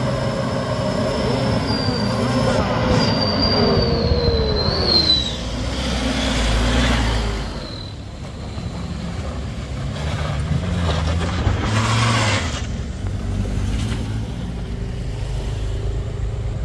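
Vehicle engines running on a road, with a high squeal that slides up and down in pitch during the first five seconds, and voices in the background.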